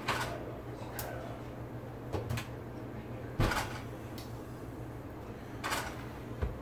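Oven door opened and a metal meatloaf pan lifted off the oven rack: a series of sharp knocks and clatters, the loudest about three and a half seconds in, over a steady low hum.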